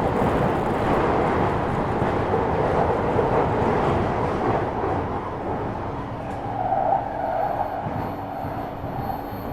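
A London Underground 2009 Tube Stock train running, heard from on board as a dense rushing noise from its motors and wheels on the track, mixed with the hum of its Bombardier IGBT VVVF traction inverter. The noise eases a little past halfway, and faint steady tones come in after that.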